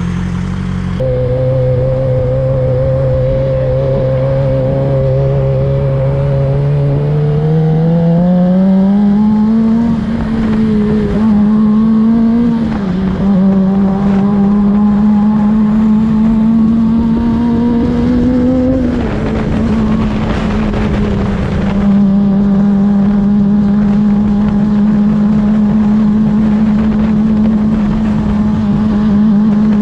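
A 2007 Suzuki GSX-R600's inline-four engine pulling under way. Its pitch climbs steadily, drops sharply at gear changes about 12 and 19 seconds in, then holds a steady cruising note, with wind rush underneath.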